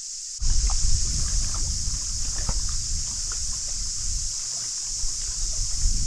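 Wind buffeting the microphone: an uneven low rumble that starts abruptly about half a second in, with faint scattered ticks and a steady high hiss behind it.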